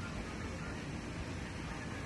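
Steady low rumble with a hiss over it: the running noise of a boat underway.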